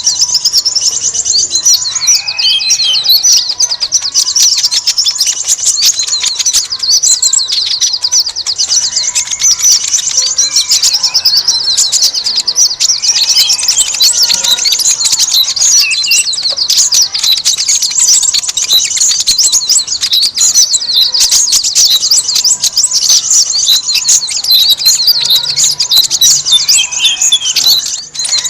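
Bird-lure track of many small birds chattering at once: a loud, dense, unbroken twittering of fast high chirps, with a few lower whistled calls rising and falling now and then.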